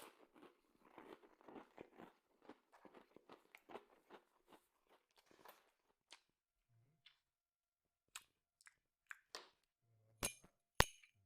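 Close-miked chewing and crunching of food, dense and irregular for the first six seconds or so, then thinning to scattered clicks, with two sharp clicks near the end.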